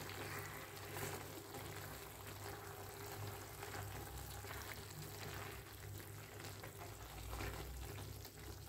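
Faint simmering and sizzling of a beef and vegetable sauté in a frying pan as a spatula stirs through it, with a few soft scrapes and squelches of the stirring. A low steady hum runs underneath.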